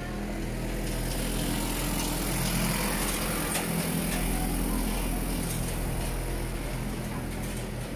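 A motor vehicle's engine running close by: a steady low hum that grows louder over the first few seconds and then eases off slowly as it passes.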